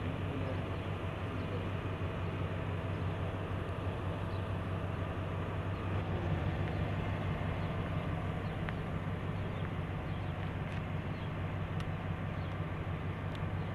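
GMC Yukon SUV's engine idling with a steady low hum, running after being started from the key fob.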